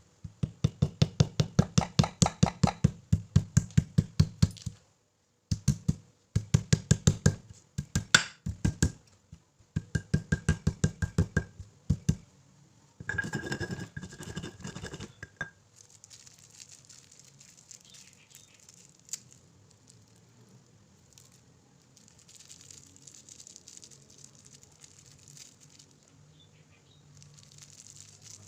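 Pestle pounding turmeric and ginger root in a mortar: quick, even strikes, about five a second, in several runs with short pauses over the first twelve seconds, then fainter for the rest.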